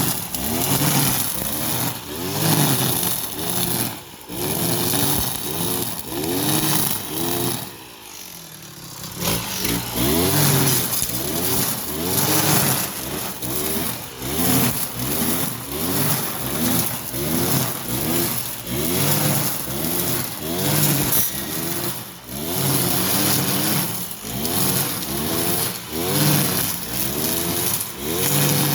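Kawasaki TJ45E brush cutter's two-stroke engine cutting grass with a nylon line head, its pitch rising and falling about once a second as the throttle is worked. It drops low briefly about eight seconds in, then picks up again.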